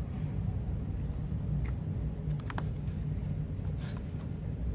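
A few faint paper rustles and ticks, as of a picture-book page being turned, over a steady low hum.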